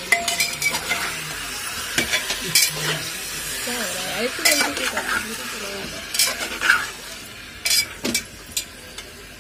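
Slotted metal spatula scraping and clinking against the sides of an aluminium pressure cooker while stirring chicken pieces in hot oil, with a steady sizzle of frying underneath.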